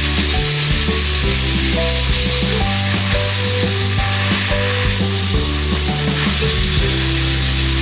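A steady, dense hiss like sizzling, under background music of held low notes that change every second or so.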